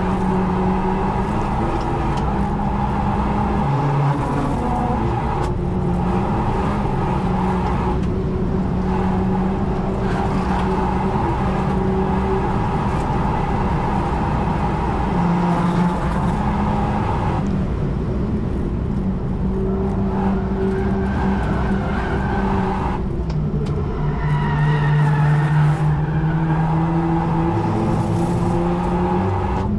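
The Renault Megane RS Trophy R's turbocharged four-cylinder engine pulling hard at high revs, heard from inside the cabin on a flat-out lap. The note holds steady, breaks briefly a few times at gear changes, then drops and picks up again as the car brakes and shifts down a gear.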